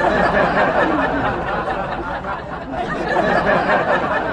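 A dense babble of many voices talking and laughing at once, steady throughout.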